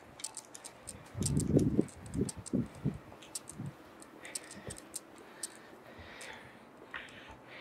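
A burning jar candle's wick crackling, with quick, irregular small clicks and pops, several a second. A few dull low thumps come between about one and three seconds in.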